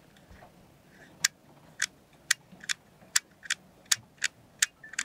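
A small black yacht-panel circuit breaker, its switch mechanism freshly repaired, being flicked on and off by hand. It gives a run of about ten sharp clicks, two to three a second, starting about a second in.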